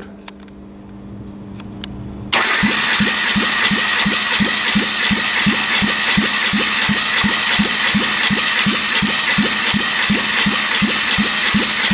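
Kia G4FC 1.6-litre four-cylinder engine being cranked over by its starter without firing, for a compression test. A steady starter whir with about four even compression pulses a second begins a couple of seconds in and stops right at the end. The cylinder under test reads 13.5 kg/cm², healthy compression.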